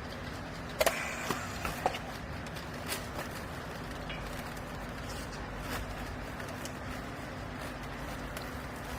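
Steady hum of a running garment baler's motor and hydraulic pump, with a quick cluster of sharp metallic knocks about a second in and single knocks about three and six seconds in.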